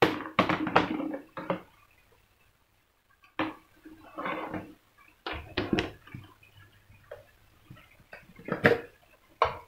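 A plastic kitchen canister and its lid clattering as it is handled to take out sugar: four short bursts of knocks and rattles a second or two apart.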